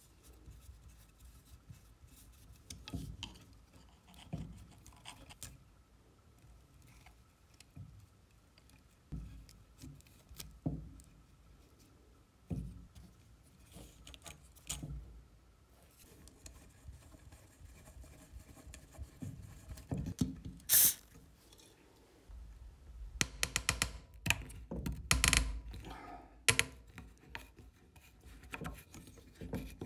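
Handling noises from the metal motor housing and wiring of a 1934 Vorwerk Kobold Modell 34 vacuum cleaner being taken apart: scattered clicks, light knocks and scrapes of metal parts and wires. Near the end comes a denser run of clicks and scraping as a screwdriver works a screw in the cord's connector block.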